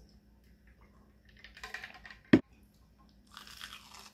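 A single sharp knock a little past halfway, then a crisp crunch near the end as teeth bite into a deep-fried, panko-crusted mozzarella corn dog.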